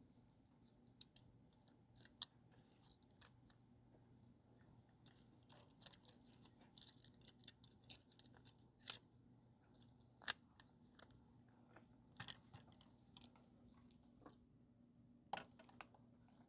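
Faint, scattered small clicks and scratches of a phone motherboard and its parts being handled and fitted back into the phone housing, with a few sharper clicks around the middle and again near the end. A faint steady low hum runs beneath.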